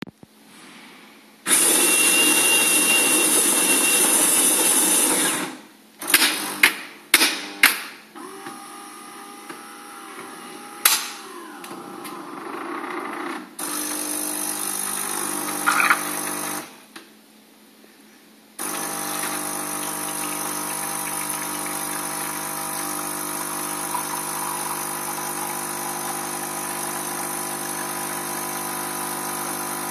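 Saeco Royal Cappuccino bean-to-cup coffee machine brewing a coffee: the grinder runs for about four seconds, then comes a series of clicks and knocks as the brew unit moves into place, and a quieter motor whir. The water pump then hums briefly, stops for about two seconds of pre-infusion, and runs with a steady hum as the coffee pours into the cup.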